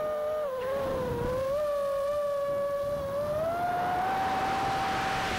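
FPV quadcopter's brushless motors (6S, 1800KV) and propellers whining in flight. The pitch dips briefly about half a second in and climbs higher a little past halfway, as the throttle changes. Rushing air hiss grows over the second half.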